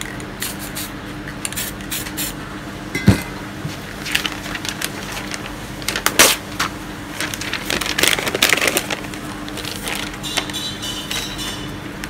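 A sheet of glossy magazine paper being crumpled and scrunched by hand, crinkling and crackling irregularly for several seconds. About three seconds in, one sharp clink, the loudest sound, as an aerosol spray can is set down among the other cans.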